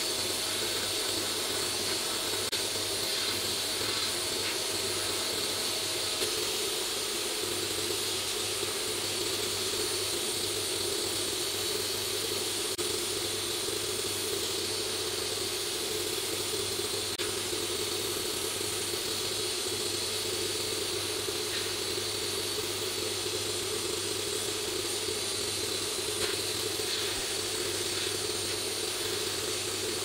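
Sandblast gun in a blast cabinet hissing steadily as compressed air and abrasive stream onto the painted metal housing of a coffee grinder, stripping it to bare metal, over a steady low hum.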